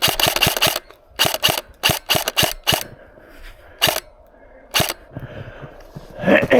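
Airsoft gun firing: a rapid string of shots, then short bursts and a couple of single shots.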